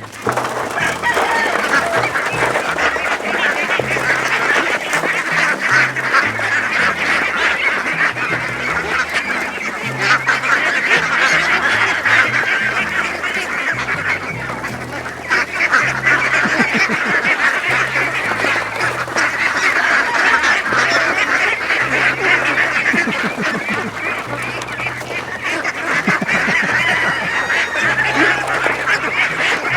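A flock of ducks quacking and chattering continuously, many birds calling over each other.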